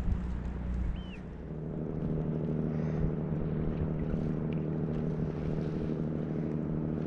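Boat engine running at a steady drone, a low hum of several level tones that becomes steadier and fuller about a second in.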